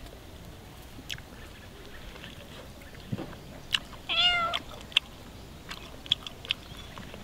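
A cat meows once, about four seconds in, a single call that rises and falls. Several short sharp clicks come before and after it.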